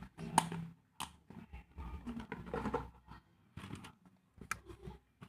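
Paper and craft supplies being handled: intermittent rustling and scraping, broken by a few sharp clicks.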